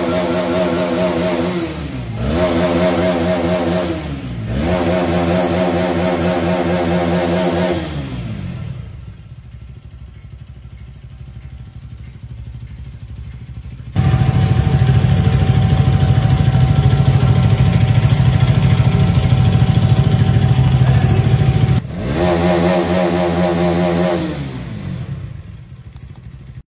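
Motorcycle engine, the Hero Karizma XMR 210's single-cylinder, revved several times, each rev climbing and falling back. Midway a louder, steady engine rumble cuts in suddenly for several seconds and cuts off just as suddenly, and a final rev follows.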